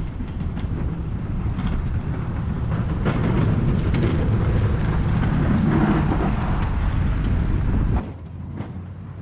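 A vehicle on the move with a loud, noisy rumble that grows louder over several seconds. It cuts off suddenly about eight seconds in, leaving a quieter, steady engine hum.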